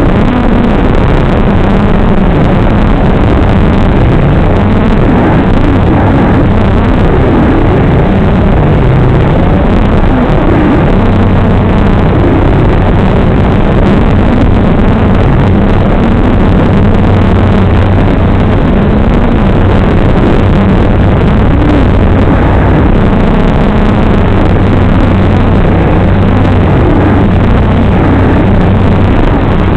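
An FPV quadcopter's Cobra Gold Edition brushless motors and propellers running loud and harsh through the onboard camera microphone in flight, their hum wavering slightly with the throttle.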